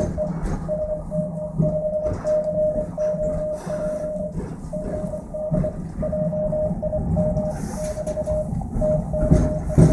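Morse code on an Elecraft KX3 transceiver: a single-pitch beep keyed in dots and dashes as the operator sends on the paddle. The low rumble of the moving train runs underneath, and there is a thump near the end.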